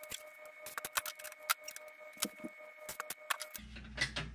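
Fast-forwarded rivet squeezing with a pneumatic rivet squeezer: a rapid run of sharp metallic clicks and taps from the squeezer and aluminium parts over a steady whine. A little over three seconds in it cuts abruptly to a low steady hum.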